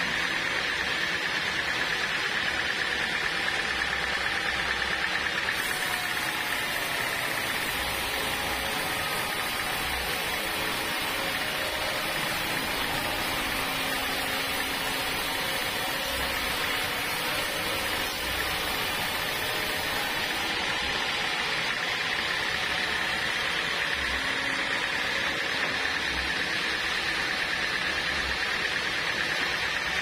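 Homemade band sawmill running steadily as its blade saws lengthwise through a large block of dry, hard timber: an even cutting noise with a steady high whine over it.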